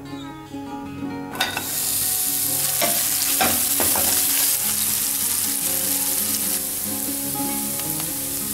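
Sliced onion and shredded carrot sizzling in hot oil in a non-stick frying pan, the sizzle setting in about a second and a half in and running steadily. A wooden spatula scrapes and stirs through the pan a few times about three to four seconds in.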